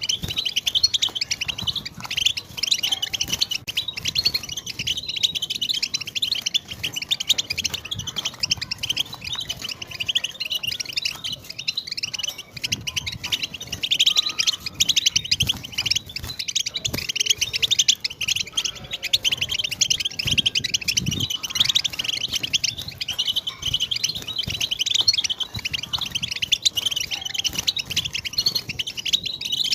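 European goldfinch singing a continuous, fast twittering song of tinkling chirps and trills, the chattering song that bird keepers call tabtaba.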